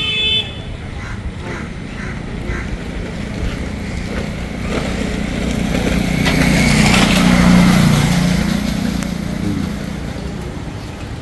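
Road traffic running past, swelling as a heavy vehicle goes by about seven seconds in and then fading.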